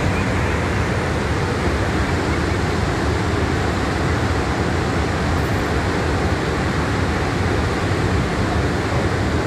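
Floodwater pouring through the open crest gates of a dam spillway and crashing into spray below: a steady, loud rush of water.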